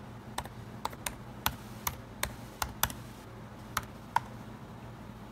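Typing on a late-2016 MacBook Pro's butterfly keyboard: about ten short, sharp key clicks at an uneven pace, stopping near the end.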